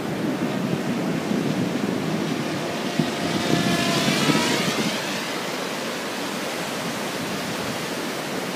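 Radio-controlled helicopter flying past, its rotor whine falling in pitch as it goes by about halfway through, over steady surf and wind on the microphone.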